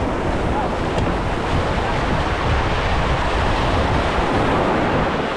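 Sea waves washing and breaking, heavily masked by steady wind noise on the microphone.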